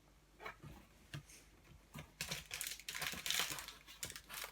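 A cardboard mystery box being opened by hand: a few light taps and clicks, then from about two seconds in, steady crinkling and rustling of the packaging.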